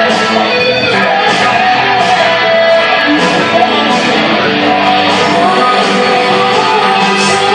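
A live band playing a song, with guitar to the fore over a steady beat.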